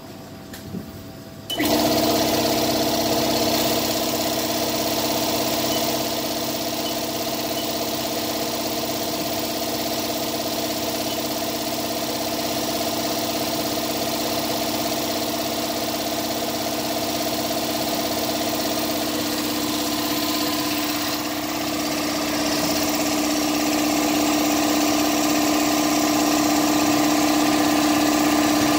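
2009 Haas SL-20T CNC lathe running: a steady mechanical hum with several steady tones that switches on abruptly about a second and a half in and holds, getting a little louder near the end.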